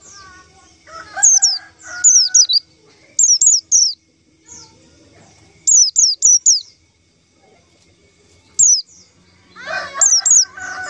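White-eye (pleci) calling: quick high notes that fall sharply in pitch, in clusters of two to four, repeated about every second, a call used to lure other white-eyes. Near the end a lower, drawn-out call joins, fitting a rooster crowing in the background.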